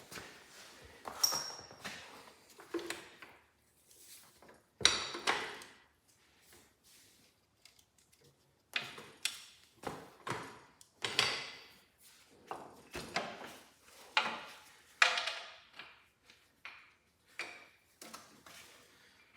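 Irregular metal clinks and knocks, some with a short ringing ping, from bolts and tools being handled while the transmission mounting bolts are fitted.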